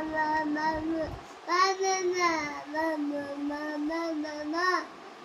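A toddler's wordless sing-song vocalizing: long drawn-out tones that rise and dip a little, broken by short pauses, loudest about two seconds in.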